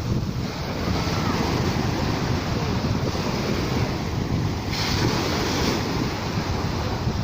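Sea waves washing against the shore, with wind buffeting the microphone. A louder hiss of water for about a second, about five seconds in.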